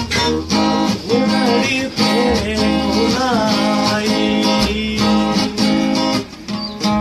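Cutaway acoustic guitar strummed in rhythmic chords, with a wavering melody line on top and held low bass notes that change about every two seconds.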